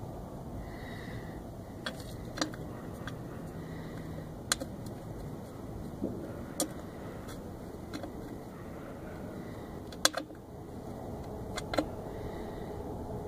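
Small metal and hard parts of a quarter-glass mount clicking and clinking as they are handled and fitted together, a dozen or so sharp separate clicks at irregular intervals, the loudest about ten seconds in, over a steady low hum.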